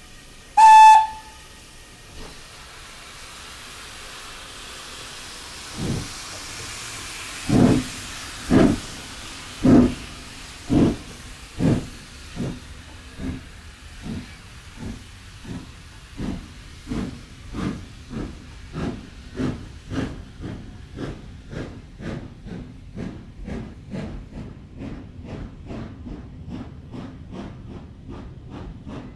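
Steam locomotive gives a short whistle blast, then steam hisses. It pulls away: exhaust chuffs start slow and heavy about six seconds in and quicken steadily to about two a second as it gathers speed.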